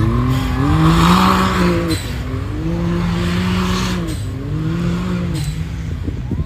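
Side-by-side UTV engine revving hard in three surges, each rising and then falling in pitch, as it spins its tires through loose dirt; a gritty spray of dirt is loudest about a second in.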